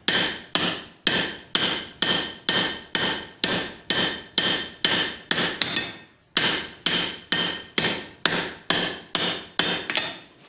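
Hand hammer striking a red-hot steel pipe on an anvil, drawing out a taper, about two ringing blows a second. There is a short pause about six seconds in, then the blows go on until just before the end.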